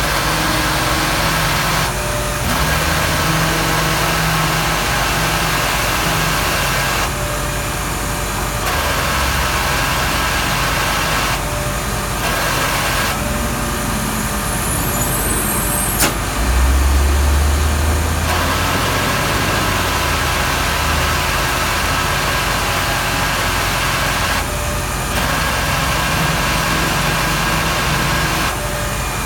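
Jamieson VT2000 vacuum excavation truck running under suction: a steady loud mechanical roar with a hiss over it. The hiss drops away briefly several times. A sharp click comes a little past halfway, followed by a low rumble for about two seconds.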